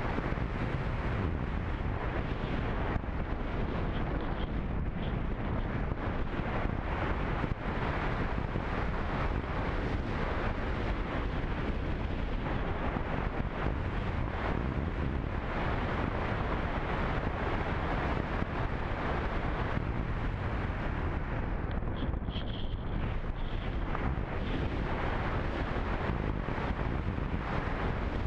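Steady rush of airflow buffeting the onboard camera's microphone on a radio-controlled slope glider in flight, with no motor. A brief faint high whistle comes in a little after two-thirds of the way through.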